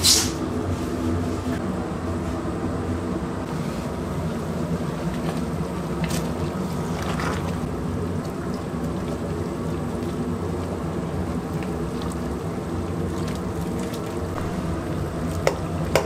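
A large pot of yukgaejang boiling hard: steady bubbling over an even, low hum. A sharp click comes near the end.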